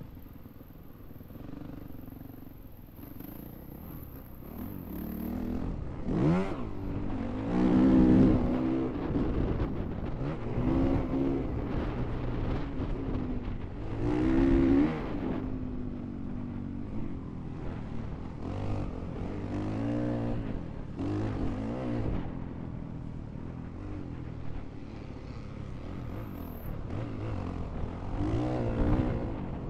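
Honda CRF450R's single-cylinder four-stroke engine under a riding motocross rider, revving up and dropping off again and again as the throttle is opened and closed through turns and jumps. It runs lower and quieter for the first few seconds, then surges repeatedly, loudest about eight and fourteen seconds in and again near the end.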